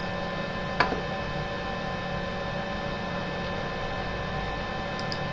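Steady electrical hum made of several fixed tones, with one sharp click about a second in.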